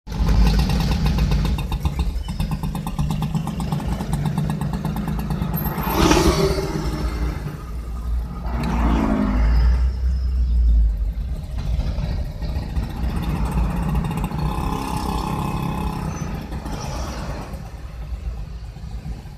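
Motor scooters and motorcycles running in slow traffic, with a few brief revs about six and nine seconds in, over the low rumble of the car's own engine, heard from inside the car.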